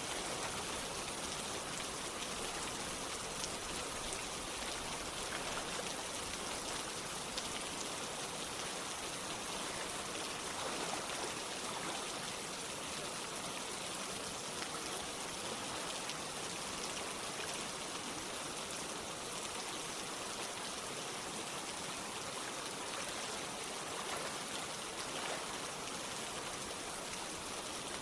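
Steady rain falling, pattering drops over a running stream of water, an even hiss with no pauses.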